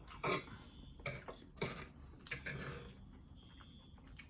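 Close-up eating sounds: a mouthful of crispy baked macaroni and cheese being chewed, with a handful of short clicks and crunches in the first three seconds. A faint high alarm tone from another apartment sounds again near the end.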